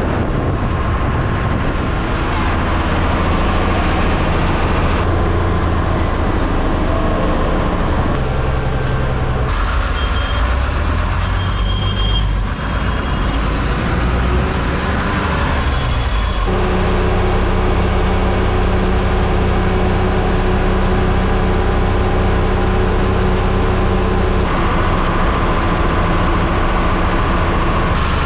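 MSRTC Lalpari bus on the move: steady engine drone and road noise. The sound changes abruptly a few times where separate clips are joined.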